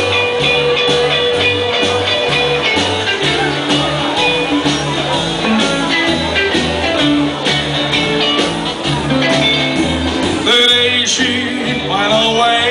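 Live rockabilly band playing: an upright bass walks a low line under acoustic and electric guitars and drums. A man's voice starts singing about ten seconds in.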